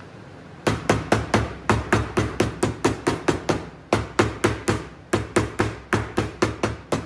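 Wooden mallet tapping CNC-cut inlay pieces down into their pockets in an end-grain wooden cutting board. Sharp knocks come in quick runs of about four a second, starting about a second in, with short pauses between runs.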